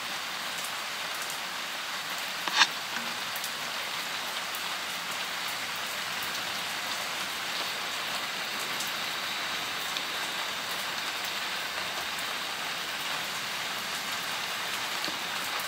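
Steady rain falling on a paved patio and garden, heard through an open door, with a single sharp tap about two and a half seconds in.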